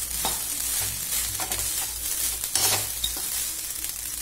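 Steel spoon stirring cooked rice into a hot oil tempering in a kadai: a steady frying sizzle, with a few scrapes of the spoon against the pan.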